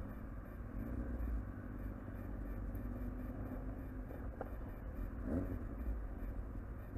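Sport-bike engine running low and steady in slow traffic, with a quick rev about five seconds in.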